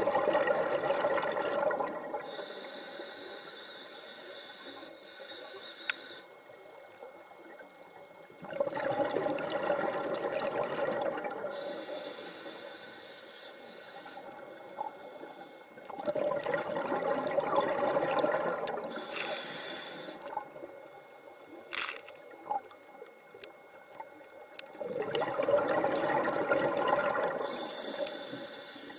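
Scuba diver breathing through a regulator underwater: a bubbling exhalation burst about every eight seconds, each followed by a shorter high hiss of the next breath being drawn.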